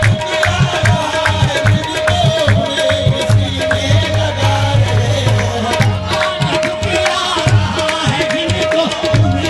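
Qawwali music: a harmonium holds a steady note over tabla drumming that beats out a regular rhythm, with singing voices over it.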